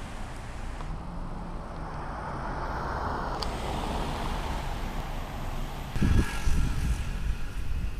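Street traffic noise: a car passes, its tyre and engine sound swelling and fading over a few seconds. About six seconds in, low gusts of wind buffet the microphone.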